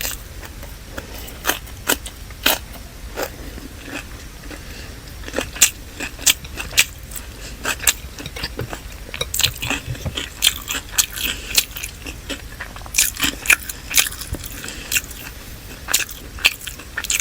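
Close-miked eating: chewing and biting on chicken biryani and salad, with irregular wet clicks and crunches.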